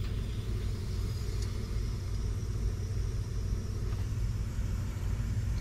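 Steady low machine hum with a rumble underneath, unchanging throughout.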